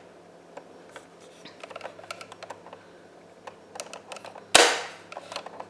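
Small clicks and knocks of a toy sewing machine being handled and set up, with one louder sharp knock about four and a half seconds in.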